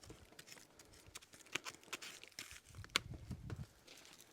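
Scattered crackles, scrapes and clicks of drywall sheets being handled and pulled apart, the paper facing tearing and the gypsum crumbling. A sharp click comes about three seconds in, inside a short low rumble.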